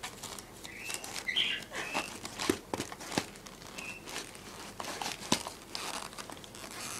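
Gift-wrapping paper crinkling and rustling in irregular bursts as a cat paws and noses into wrapped presents.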